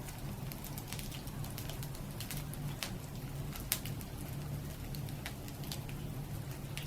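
Campfire crackling: irregular sharp pops and snaps of burning wood, with one louder pop about halfway through, over a steady low hum.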